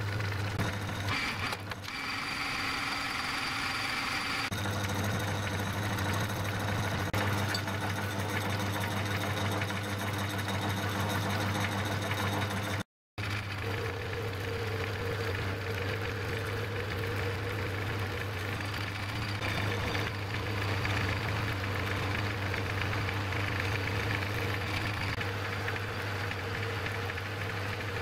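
Metal lathe running under power while single-point screwcutting a thread along a rod held between the chuck and a tailstock centre: a steady motor and gear hum. It cuts out briefly about halfway through.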